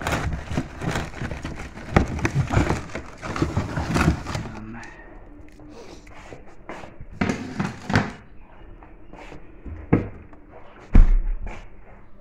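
Cardboard box and paper packaging rustling and crinkling as a hand digs into a box to pull out a chicken, with sharp clicks and knocks. It goes quieter with scattered knocks, and a heavy thump about eleven seconds in.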